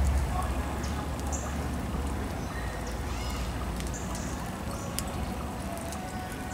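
Charcoal fire in a metal fire pit burning with a steady rush and a few sharp crackles, the clearest about five seconds in. Birds call in the background, with one clear call about three seconds in.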